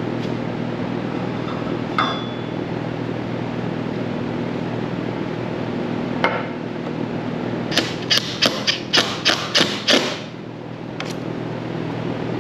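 Quick run of about eight sharp hammer strikes, roughly four a second, a little past the middle, with a few single knocks and a light metallic clink before and after, over a steady hum.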